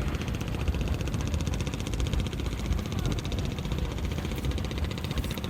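A small engine running steadily, with a low rumble and fast, even pulsing.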